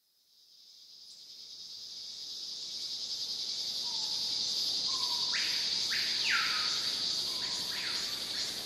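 Forest ambience fading in: a steady high-pitched insect drone, joined from about five seconds in by repeated short animal calls.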